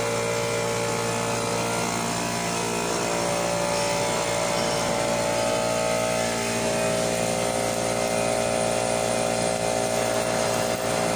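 Stick (arc) welding: the welding arc crackling and hissing steadily as the electrode burns, with a steady hum under it.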